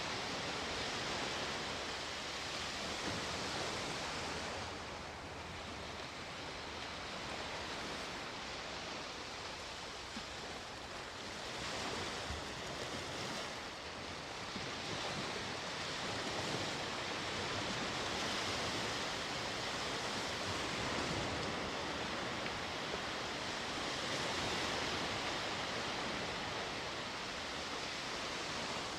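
Sea waves breaking and washing on the shore in a continuous hiss, swelling and easing every few seconds.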